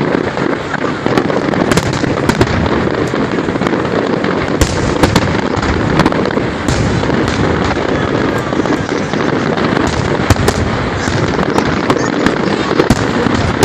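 Fireworks display: a dense, continuous crackling with many sharp bangs going off at irregular intervals.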